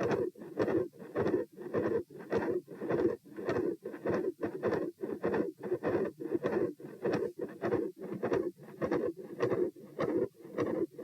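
Human heart sounds picked up on the chest: a steady, regular run of heartbeats with a loud continuous murmur that fills the gaps between the beats. The recorder takes this for a possible patent ductus arteriosus.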